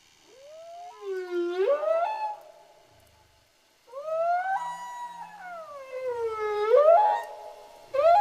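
Long, eerie pitched calls that glide slowly up and down, three of them with short pauses between: one rising call, then a longer one that swells, sags and climbs sharply, then a brief one at the end.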